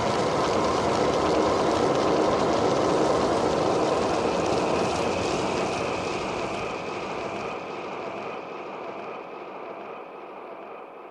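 Closing section of a full-on psytrance track: a steady rushing wash of noise with a faint held tone, fading out gradually.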